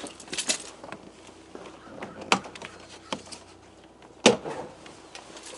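Scattered clicks and knocks of hand tools and small parts being handled while working on a pickup's door panel trim, the sharpest knock a little past four seconds in.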